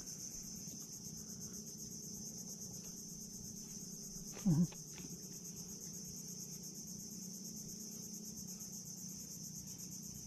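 A steady, high-pitched insect chorus trilling with a fast, even pulse, with one brief low sound about four and a half seconds in.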